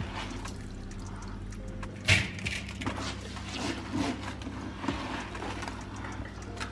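Hands scooping and rubbing soaked rice in water in a plastic basin: wet grains swishing and water splashing, with many small clicks. There is a sudden loud knock about two seconds in and a steady low hum underneath.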